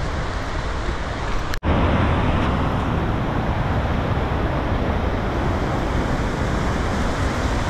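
Fast mountain stream rushing over rocks in a steady white-water noise. There is a brief break about one and a half seconds in, after which the rushing is louder.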